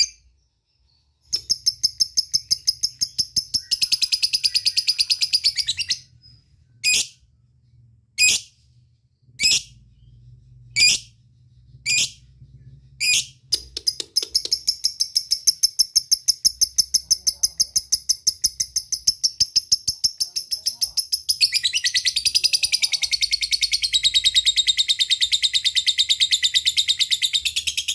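Lovebird chattering in its ngekek: fast runs of sharp, high chirps. In the middle these are broken by a row of single loud calls about a second apart, and over the last six seconds the chatter grows denser and reaches lower.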